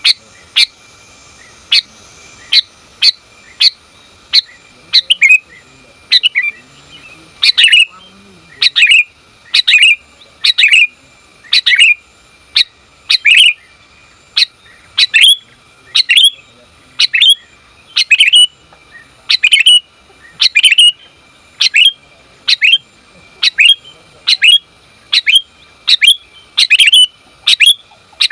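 Female sooty-headed bulbul giving short, sharp calls over and over, about one to two a second, each call dropping quickly in pitch: the call a female uses to draw males to answer.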